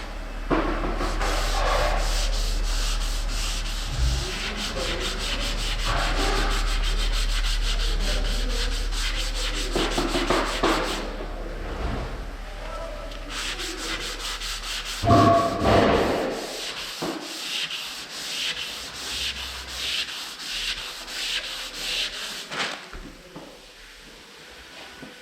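Sanding body filler on a car panel with 180-grit abrasive: steady, continuous scraping rubs for about the first two-thirds, then slower separate back-and-forth strokes, about two a second, with a low hum under the first part that stops.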